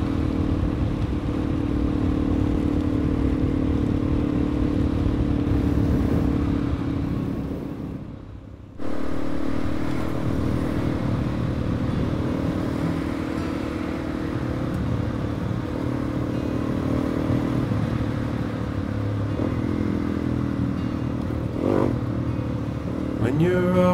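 Suzuki DR-Z400E's single-cylinder four-stroke engine running steadily under way on a dirt forest road, with a brief fade and sudden return about eight seconds in and a few changes in engine pitch near the end.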